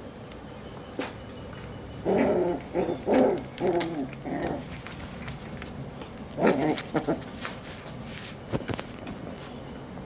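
Coton de Tulear puppies giving short play barks and growls: a run of four or five about two seconds in, and another burst about six and a half seconds in, with a few sharp clicks between.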